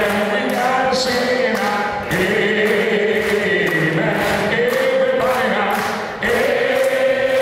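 A choir singing, with hands clapping along to the beat about twice a second.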